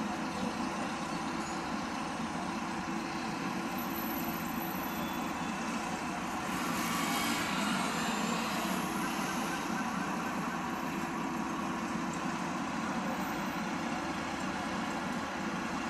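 Steady road traffic at a busy intersection: cars and buses driving past and idling. A little before halfway, one vehicle passing grows louder for a couple of seconds, then fades back into the general noise.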